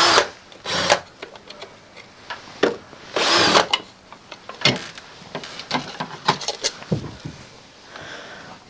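The plastic base of a burglar-alarm internal speaker being unscrewed and worked off the wall: scattered clicks and scrapes of plastic and screw, with a rasping burst of about half a second roughly three seconds in.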